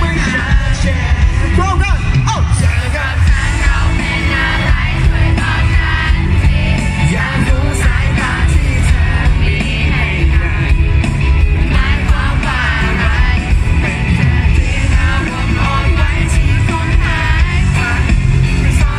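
Live band playing a song: a male singer's lead vocal over electric guitar, keyboards and drums, loud and dense, recorded from among the audience.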